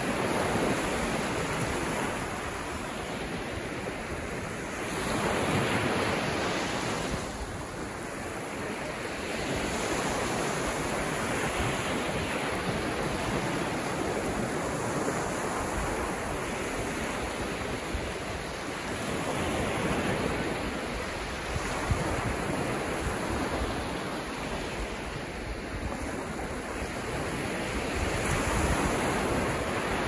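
Small ocean waves breaking and washing up a sandy beach, the surf swelling and easing every few seconds.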